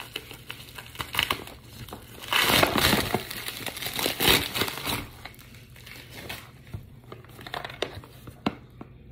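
A padded plastic mailer being opened and crinkled as a cardboard box is slid out of it. The rustling is loudest in two bursts, two to three seconds in and around four seconds in, then turns to quieter handling with a few clicks.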